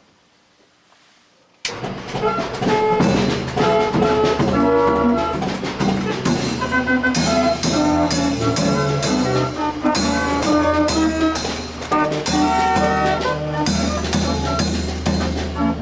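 Background music with a steady beat, cutting in suddenly about a second and a half in after near silence.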